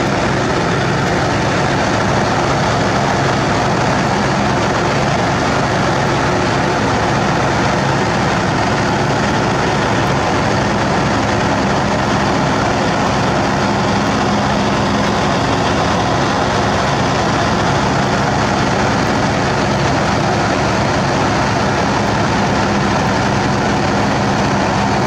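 Heavy diesel engine of the Sakai ER501F road reclaimer running steadily, heard up close from its engine deck beside the exhaust stack, with a low hum that strengthens for a few seconds midway.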